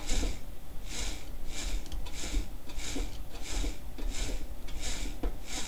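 Rotor of a washing-machine motor, converted into a magnet generator, being turned by hand. A rhythmic rubbing swish repeats about every two-thirds of a second as it turns.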